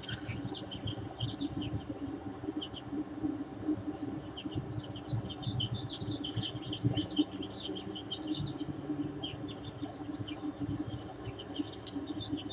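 Small birds chirping: many short, high calls in quick succession over a low steady hum.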